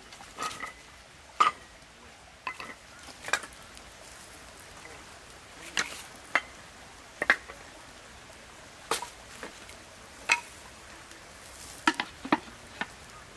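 Dry split firewood sticks knocking and clacking against each other and a wire log rack as they are stacked by hand, in irregular sharp knocks, some with a short woody ring.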